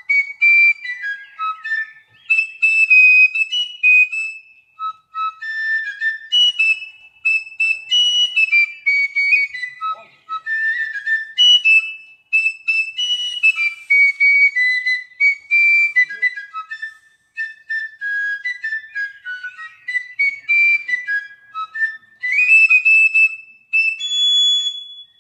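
A fife played solo: a quick, high-pitched melody in short phrases with brief pauses between them.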